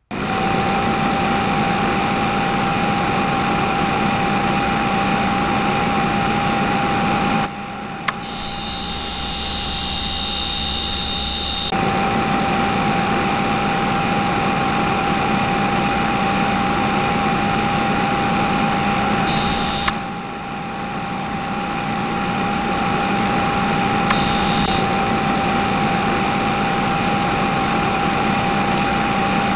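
Small electric motor of a homemade miniature borewell drilling rig, switched on and running steadily as it turns the drill rod into the soil, with a steady whine. For a few seconds about a quarter of the way in it drops in level and a higher whine comes in, then the steady running returns.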